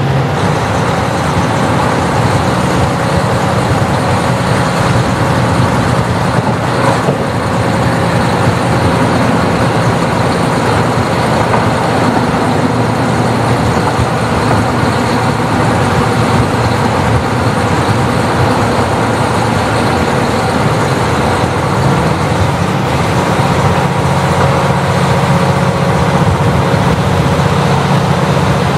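KiHa 40 diesel railcar running, its diesel engine droning steadily under wheel and rail noise, with a single knock about seven seconds in. The engine note eases around eight seconds in and strengthens again after about twenty-two seconds.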